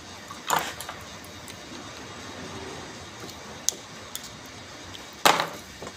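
Metal clanks and clicks from working on a forklift starter motor's brush holder and housing with a screwdriver: two sharp clanks, one about half a second in and one near the end, with a few light ticks between.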